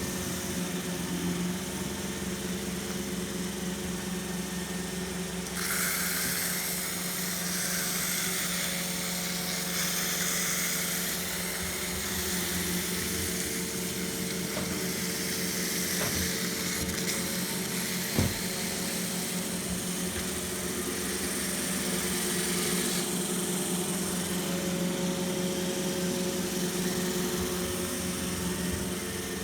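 iRobot Roomba i3 robot vacuum running: a steady motor hum and whine, with a louder hiss of brushes and suction from about six seconds in until about twenty-three seconds in. A single sharp knock about eighteen seconds in.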